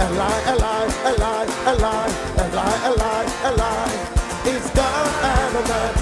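Live worship music: a man sings with band accompaniment, his voice bending through quick melodic runs over a steady beat.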